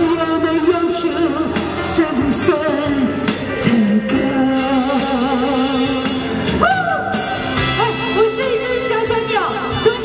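A woman singing a Mandarin pop ballad into a handheld microphone over a pop backing track, both played through a small portable busking amplifier.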